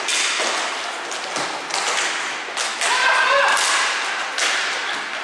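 Ball hockey play: sticks and ball clacking and thudding in scattered sharp knocks, with a player's shout about three seconds in.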